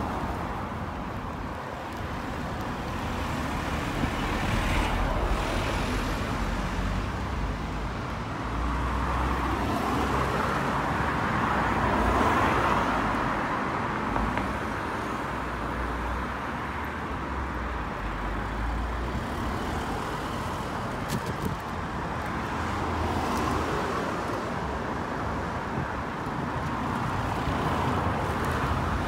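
Road traffic going by, a steady noise of cars that swells and fades several times as vehicles pass.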